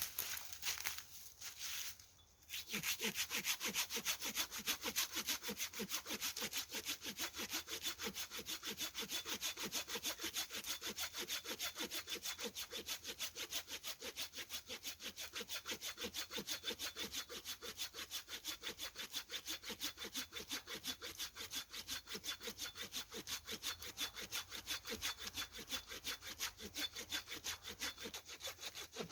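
Hand saw cutting through wood with fast, even back-and-forth strokes, starting about two and a half seconds in.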